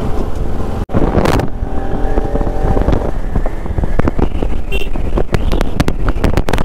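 Bajaj Pulsar RS200's single-cylinder engine running under way, mixed with wind noise on the moving bike. A run of sharp clicks comes in the second half.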